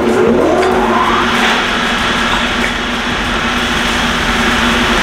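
Large stone-cutting saw with a big circular diamond blade switched on: the motor starts with a hum and a whine rises as the blade spins up over about a second, then it runs steadily at full speed.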